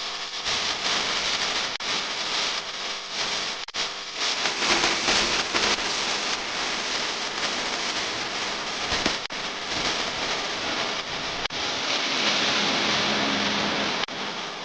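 A steady, dense rushing hiss like heavy rain, starting abruptly.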